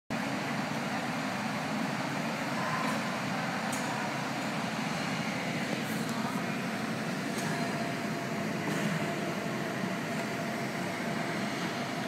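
Brewery bottling line running: a steady machine din, with a few faint clinks of glass bottles now and then.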